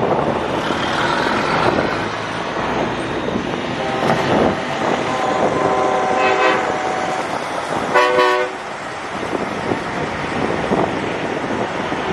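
Semi trucks driving past with their engines running, and air horns sounding: a short blast about four seconds in, a longer blast around five to six seconds, and the loudest, brief blast about eight seconds in.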